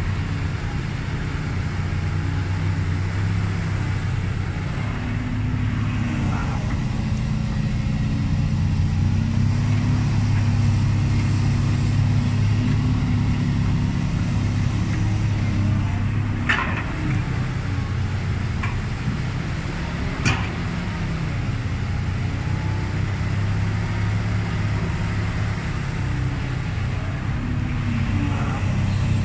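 Diesel engine of a Kobelco SK200 Super crawler excavator running steadily under working load, its pitch shifting slightly as the hydraulics dig and swing. Two sharp knocks sound about 16 and 20 seconds in.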